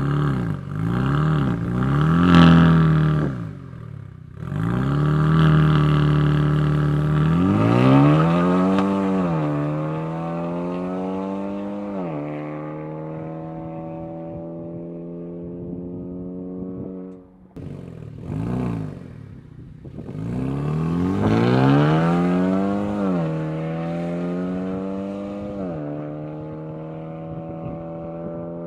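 2013 Hyundai Veloster Turbo's turbocharged 1.6-litre four-cylinder through a Solo Performance exhaust with resonator: a few quick revs, then a hard pull with rising pitch that drops at a gear change and settles into a steady drone. A short blip follows, then a second pull, another drop and a steady run.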